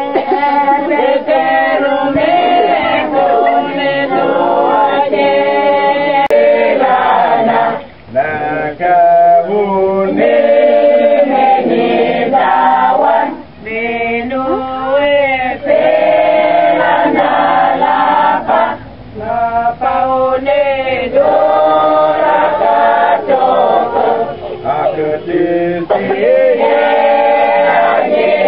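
Mixed choir of men and women singing unaccompanied in several parts, with held notes and short breaks between phrases about eight, thirteen and nineteen seconds in.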